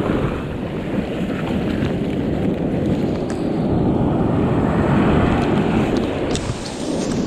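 Wind buffeting the microphone in a steady low rumble, with surf washing up the beach underneath.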